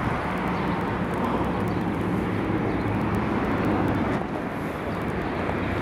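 Steady vehicle rumble, an even wash of engine and road noise with a faint low hum, holding level without a break.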